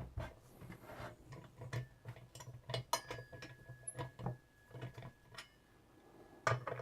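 Light, irregular clicks and taps of metal hardware being handled while a bench drill's base is bolted together.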